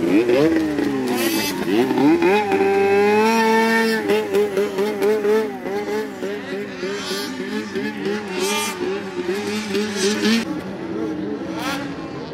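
Racing snowmobile engines revving hard: the pitch climbs steeply twice in the first two seconds, then holds high with a quick up-and-down waver about twice a second, and eases off a little near the end.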